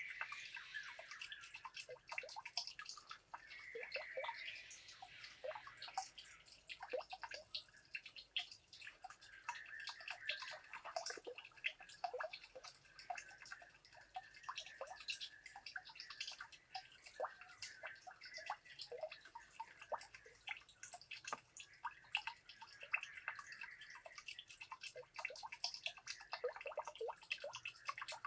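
Small bamboo waterwheel trickling water into a shallow pond, with many small drips and splashes in quick, irregular succession.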